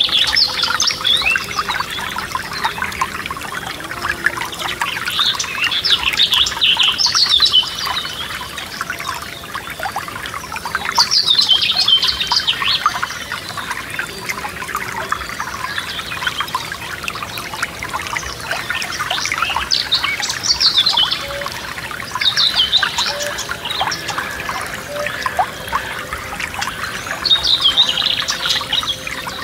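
Forest stream trickling steadily, with a songbird singing short, bright phrases every few seconds over the water.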